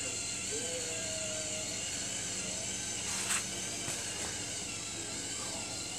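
LEGO Power Functions electric motors whirring steadily as they drive the crane's boom down, running slowly on weak batteries. A single sharp click about three seconds in.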